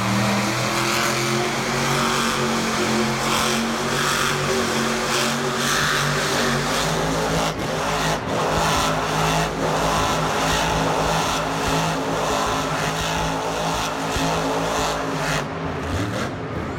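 Monster truck engine running loud, a steady drone over the noise of the arena.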